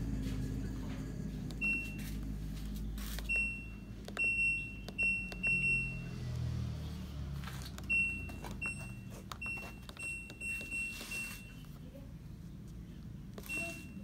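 LG top-loading washing machine control panel beeping as its buttons are pressed: about a dozen short, high beeps in two quick clusters with a pause between, plus one more near the end, over a low hum. Each beep is a key press registering, a sign that the buttons respond again after the control board repair.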